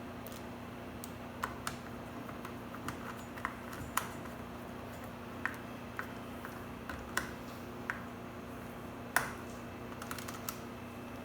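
Irregular light metallic clicks and taps as the negative cable lug and terminal bolt are handled and fitted onto a powersports battery's negative terminal, over a steady low hum.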